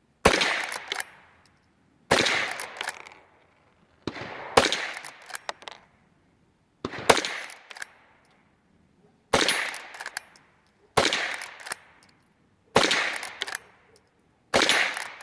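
Henry .22 lever-action rifle firing Norma Eco Speed lead-free .22 LR rounds: about eight shots, roughly two seconds apart. Each crack trails off over about a second, and smaller clicks come between the shots.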